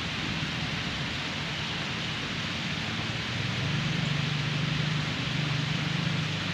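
Steady rain falling, an even hiss throughout. A low hum grows louder about halfway through and holds.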